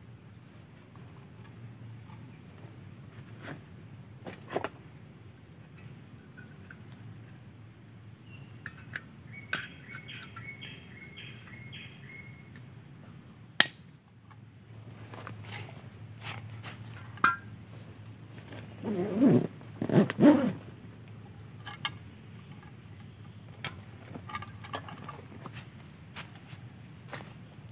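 A steady, high-pitched insect drone from the surrounding plantation, with scattered clicks and knocks from camp handling. A short run of repeated chirps comes about ten seconds in, and a louder cluster of knocks and rustling comes about two-thirds of the way through.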